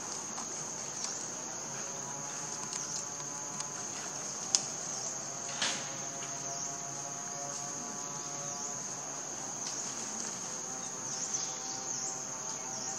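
Insects keeping up a steady, high-pitched drone, with a sharp click about four and a half seconds in and a short falling chirp about a second later.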